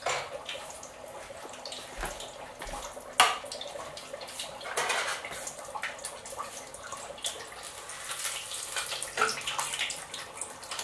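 Hot oil sizzling steadily in an electric deep fryer as battered green tomatoes fry, with scattered light clicks and one sharp knock about three seconds in.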